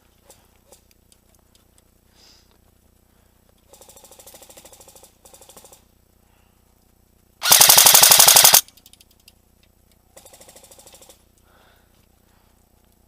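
Airsoft guns firing full-auto in rapid bursts: fainter bursts about four and five seconds in and again near ten seconds, and one loud, close burst of about a second near the eight-second mark.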